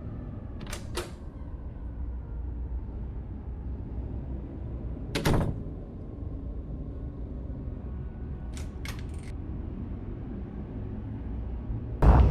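A few sharp mechanical clicks and knocks over a steady low rumble: a quick double click, a single louder knock, three rapid clicks, then a loud thud near the end.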